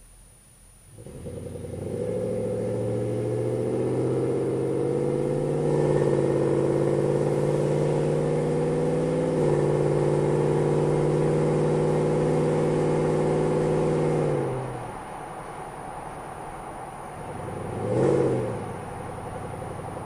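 2004 Nissan Titan's V8 through JBA long-tube headers and an aftermarket muffler, heard inside the cab under hard acceleration: a loud, deep exhaust note climbs steadily in pitch, with one step about halfway through. It falls away as the throttle is lifted, and a short rev rises and falls near the end.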